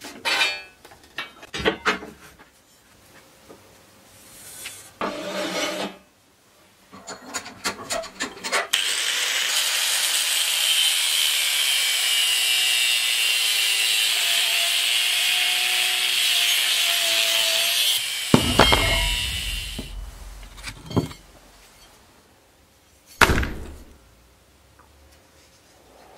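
Steel bar stock handled with scattered knocks and scrapes, then an abrasive cut-off disc grinding through the steel with a steady high hiss for about nine seconds before the wheel winds down. A couple of sharp knocks follow near the end.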